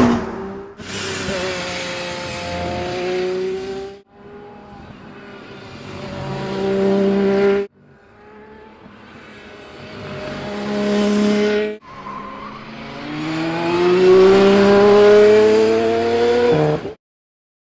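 Aston Martin Valkyrie's naturally aspirated V12 at high revs, its pitch climbing as the car accelerates, heard in about four short clips that each grow louder and end in an abrupt cut.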